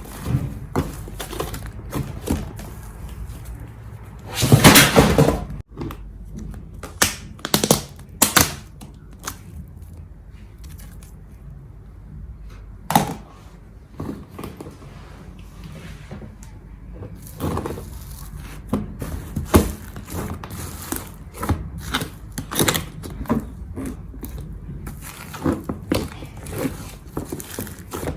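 Slime being squeezed, poked and stretched by hand: an irregular string of sticky clicks, pops and squelches, with one longer, louder squish about five seconds in.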